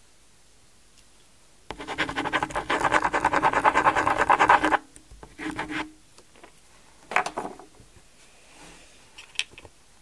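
Rapid scratching with fast ticking for about three seconds, starting about two seconds in, then a few short scrapes and clicks. The sound comes from plastic Spirograph drawing pieces being worked and handled.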